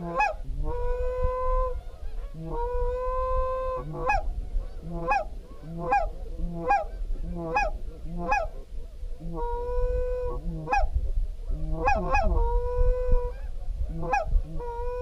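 Geese honking: a run of short honks, about two a second, mixed with several long, drawn-out calls. A low rumble of wind on the microphone runs underneath.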